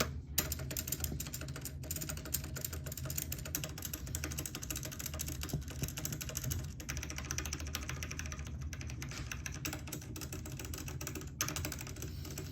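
Continuous fast typing on an uncovered computer keyboard, a dense run of key clicks with no cloth over the keys to damp them.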